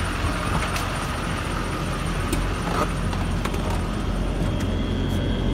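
2005 GMC C5500 dump truck's engine idling steadily, with its dump-body hydraulic pump switched on. A faint high steady whine joins in about four and a half seconds in.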